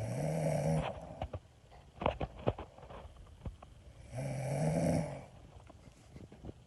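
Someone snoring: two loud snores about four seconds apart, each under a second long and rising slightly in pitch, with faint clicks between them.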